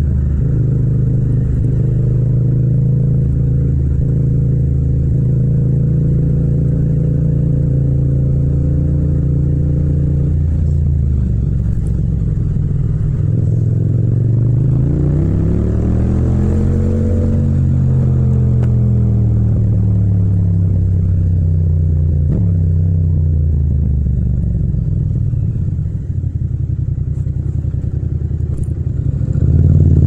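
Yamaha MT-07 (FZ-07) 689 cc parallel-twin engine running as the bike is ridden. It holds steady revs for about ten seconds and drops off, then the revs climb as it accelerates near the middle and ease off again.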